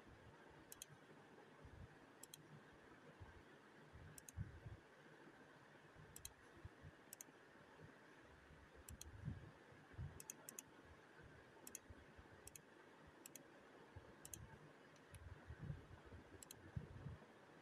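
Near silence: room tone with faint, irregular high clicks about once a second and a few soft low thumps.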